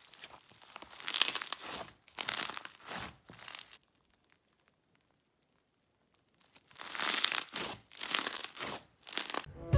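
Crunchy bingsu slime being squished and poked, its beads crackling and popping in short bursts, with a pause of about three seconds in the middle.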